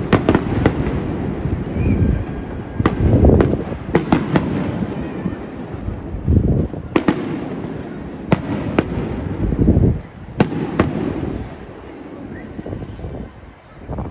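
Aerial fireworks bursting in quick succession: sharp cracks and crackle over deep, rolling booms, with the heaviest booms about three seconds in and again around six and nine seconds, thinning out toward the end.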